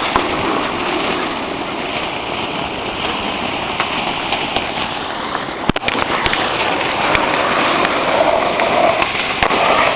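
A burning firework hissing steadily, with sharp crackles and pops from about six seconds in.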